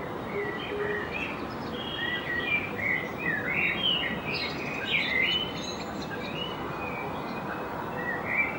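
A flock of black-headed gulls calling: many short cries that bend up and down and overlap, busiest in the middle and thinning out later, over a steady rushing background noise.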